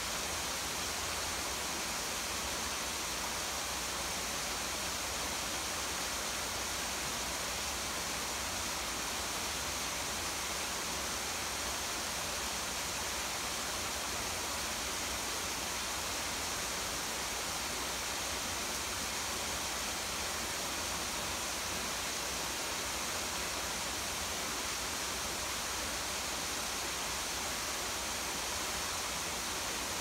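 Small garden waterfall splashing into a pool, mixed with falling rain: a steady, even rush of water that does not change.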